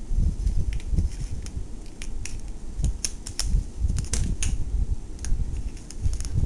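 Irregular small clicks and knocks of a homemade mousetrap car being wound back by hand, its string wrapped onto the axle as the spring-loaded lever arm is drawn back, over a low handling rumble.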